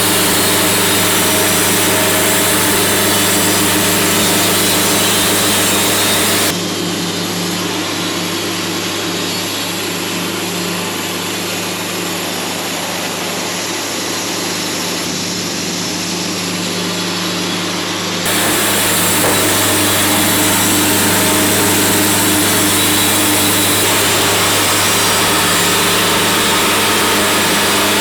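Engine-driven portable band sawmill running steadily as its blade saws through a log, a constant hum under a hiss of cutting. The hiss drops abruptly about a quarter of the way in and comes back just as suddenly past the middle.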